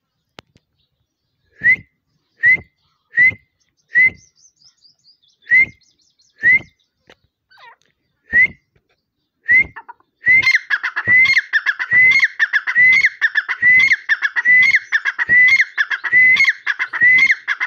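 Grey francolin calling close by: single sharp, ringing notes about a second apart, then from about ten seconds in a fast, unbroken run of calls, about two a second.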